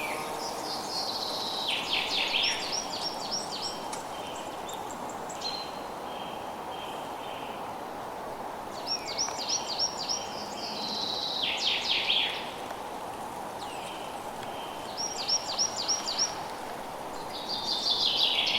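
Forest birdsong: a bird sings a short phrase of quick, falling whistled notes, repeated three times, over a steady background hiss.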